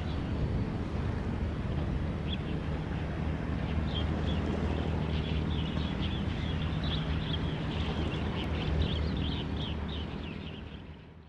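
Ship's engine droning steadily at a low pitch under a rushing noise. From about two seconds in, a rapid run of high, squawking, bird-like chirps plays over it, and everything fades out near the end.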